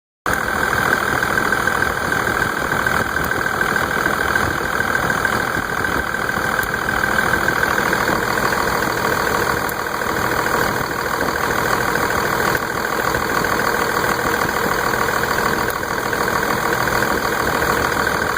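Car engine idling steadily, with a few faint, sharp snaps at irregular intervals: static electricity discharging from the crankshaft pulley to the engine block, a sign of static charge built up by the serpentine belt drive.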